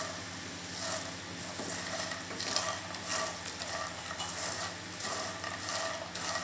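Puffed lotus seeds (phool makhana) frying in ghee and being stirred with a wooden spatula in a coated frying pan: a light sizzle under a scraping rustle with each stroke, about one stroke a second.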